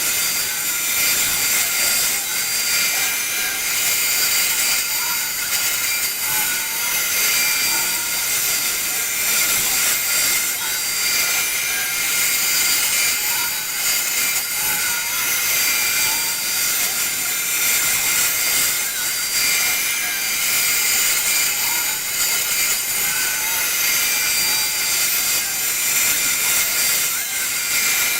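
CNC router spindle running steadily with a 1/4-inch upcut bit cutting out the outer profile of a guitar body: a steady high-pitched whine over a hiss.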